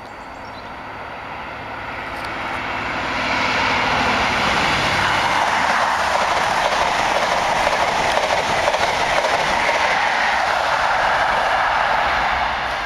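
Diesel passenger train approaching and passing close at speed. The low engine hum builds over the first few seconds, then gives way to a loud, steady rush of wheels on rail and air, which falls away near the end.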